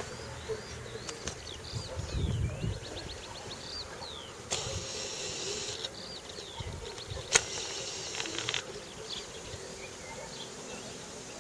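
Small birds chirping outdoors in quick repeated rising and falling calls. A low rumble comes about two seconds in, and a sharp click, the loudest sound, comes about seven seconds in. Two stretches of hiss start and stop abruptly.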